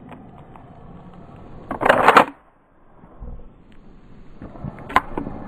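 Mossberg 590 pump shotgun being handled: a loud half-second metallic clatter about two seconds in, then light clicks and one sharp click near the end.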